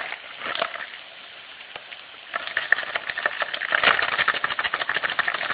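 Bacon-wrapped filet mignon steaks sizzling in an oiled nonstick frying pan: a dense, irregular crackle that gets louder about two seconds in.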